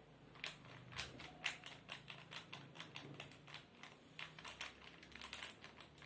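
A quick, uneven run of light clicks and taps, several a second, from small plastic parts of a slime shaker kit being handled and set in place.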